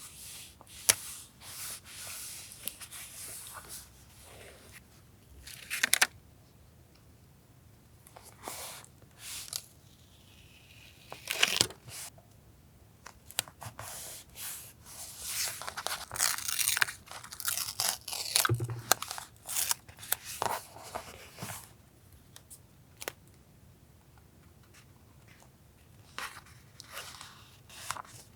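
Paper being torn, crinkled and handled for a journal collage, in irregular rustling bursts with a few sharp taps.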